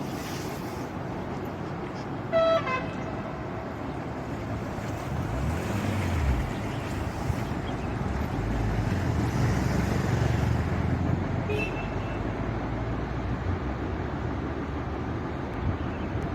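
Road traffic with a vehicle engine rumbling past, and a short horn toot about two and a half seconds in.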